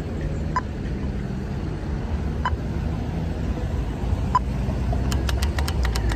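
Steady rumble of road traffic, cars queued and moving in peak hour. Over it come a faint short pip about every two seconds and, near the end, a quick run of sharp ticks, as from a pedestrian crossing signal at the traffic lights.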